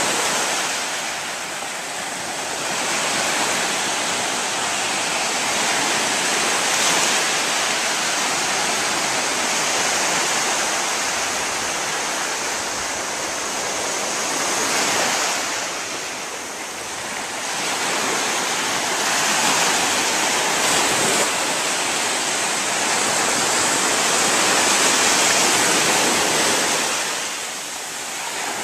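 Ocean surf breaking on a sandy, rocky beach: a continuous rush of waves washing in, swelling and easing every few seconds.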